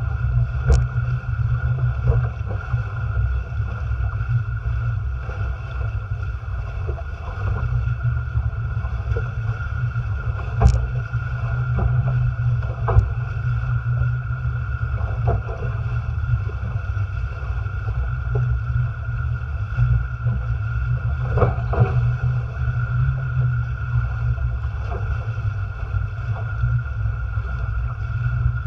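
Heavy wind rumble on the microphone over water rushing and splashing past the hulls of a Farrier Tramp folding trimaran sailing fast through choppy sea, with a few sharp knocks scattered through.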